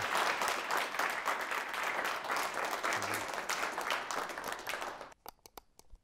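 Audience applauding, a dense patter of many hands clapping that stops abruptly about five seconds in, followed by a few isolated clicks.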